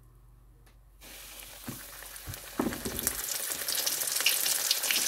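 Flour-dusted chicken drumstick slid into hot oil at about 350 °F (180 °C): after a quiet first second, the deep-frying sizzle starts and grows steadily louder, with a few light knocks along the way.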